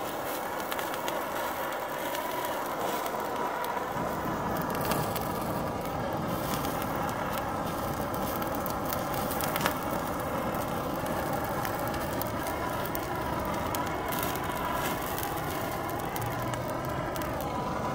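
Handheld BernzOmatic gas torch hissing steadily as its flame heats a pile of zirconium and titanium machining chips, with scattered crackles from the burning metal. The hiss fills out lower about four seconds in.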